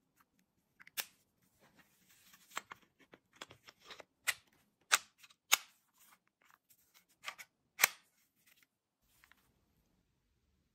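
Plastic and metal clicks and knocks of a Glock 17 blowback air pistol being handled, a string of irregular sharp clicks with a few louder snaps.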